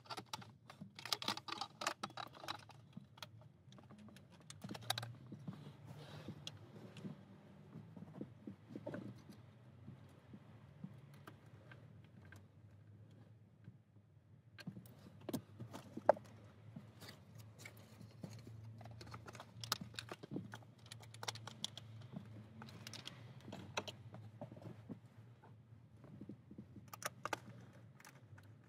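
Faint, scattered clicks, taps and light rattles of tools and small car-interior parts being handled while a steering wheel is unbolted, over a faint low steady hum. The clicks come in quick clusters about a second in and again near the end.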